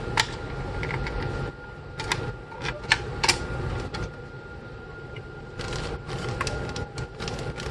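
Scattered light clicks and taps of small plastic and metal parts being handled while thermal paste is put on a CPU, with a short rustle about six seconds in and a faint steady high tone underneath.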